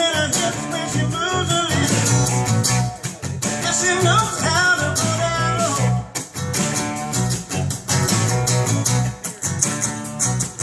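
Live band playing a song: a man singing over a strummed acoustic guitar and an electric guitar, with a steady beat. The vocal phrases come in the first couple of seconds and again around the middle.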